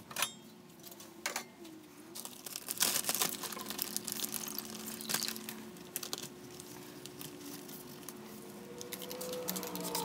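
Plastic bag crinkling and rustling in gloved hands, with scattered clicks and handling noise, busiest about a third of the way in. A faint steady hum runs underneath.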